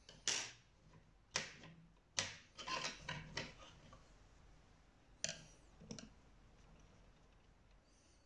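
Sharp clicks and light knocks from cuckoo clock hands being picked up and handled. There are three single clicks in the first two and a half seconds, a quick cluster around three seconds, and two more at about five and six seconds.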